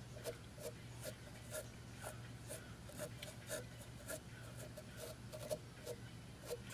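Small brush scrubbing dust off the Olympia InfoGlobe's rotating LED arm and contacts, in faint, quick strokes about twice a second. The dust is said to make the LEDs fail.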